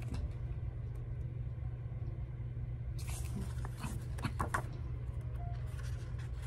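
Steady low hum of room noise, with a few soft rustles and clicks of the paper coloring-book pages being handled about three to four and a half seconds in.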